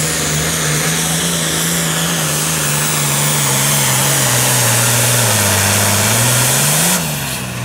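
Super Farm class pulling tractor's turbocharged diesel engine running flat out as it drags the weight sled, with a loud, steady engine note over a hissing rush. The pitch sags about five seconds in and climbs back, then the sound falls away sharply near the end as the run ends.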